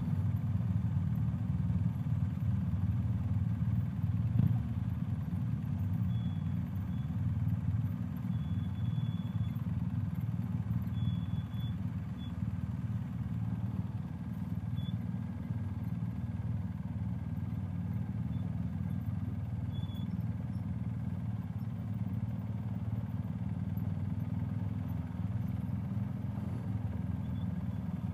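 BMW R 1250 GS Adventure's boxer-twin engine running steadily at low riding speed, a low, even rumble heard from the rider's helmet.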